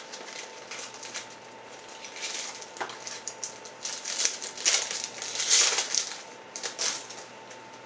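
Plastic or foil trading card pack wrapper crinkling and tearing as it is opened, in irregular bursts with a few sharp clicks.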